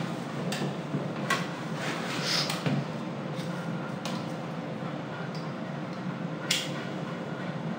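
Cigarette lighter clicking: about six sharp clicks spread over several seconds, the loudest near the end, over a steady low hum.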